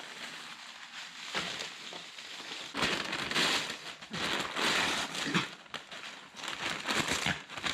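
Chopped-up newspaper rustling and crinkling as it is handled, in several swells about a second long with crackly bits between.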